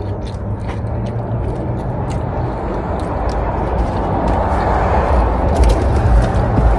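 Steady low rumble of a car heard from inside, engine running, growing a little louder toward the end, with a few light clicks.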